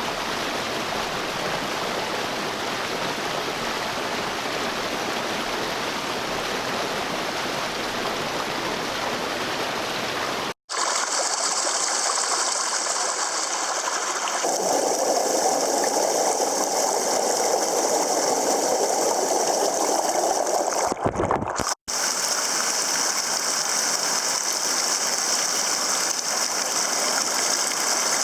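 Small mountain waterfall and creek water rushing over rocks, a steady rush. It cuts out briefly twice and comes back each time with a different, brighter, hissier sound.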